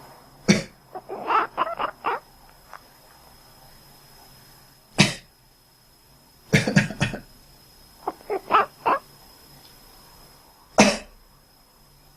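A person coughs sharply, once about half a second in, again near five seconds, in a quick run near seven seconds and once more near eleven seconds. After the first cough and again after the run of coughs, a cat answers with a string of short, quick meows.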